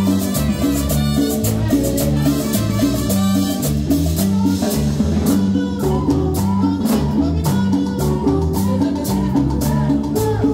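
A live Latin tropical dance band of the sonora type playing at full volume: a steady repeating bass line and a driving percussion beat, with a woman singing over it into a microphone.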